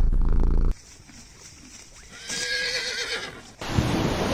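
A horse whinnying: one wavering call of about a second. Before it a loud low rumbling sound cuts off abruptly, and near the end a loud steady rush of wind or surf noise begins.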